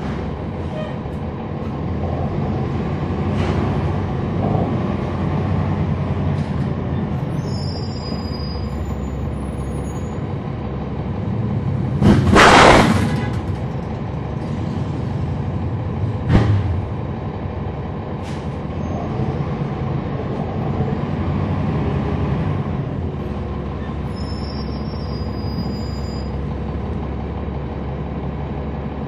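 Cabin sound of a NABI 40-SFW transit bus with a Cummins ISL9 diesel, heard from the back seat: the engine and road noise run steadily and swell twice as the bus pulls. About halfway through comes a loud hiss of air from the bus's air system, lasting about a second, and a sharp click follows a few seconds later.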